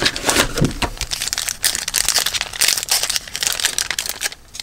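Plastic wrapper of a trading-card pack crinkling as the pack is handled and opened, a rapid run of crackles from about a second in that stops shortly before the end.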